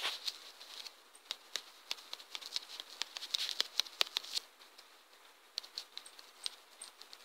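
Irregular quick taps of typing on a touchscreen keyboard, several clicks a second in flurries, thinning out about five seconds in.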